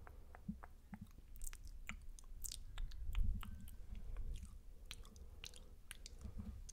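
Close-miked wet mouth sounds for ASMR spit painting: irregular soft clicks and smacks of lips, tongue and saliva, several a second, with no words.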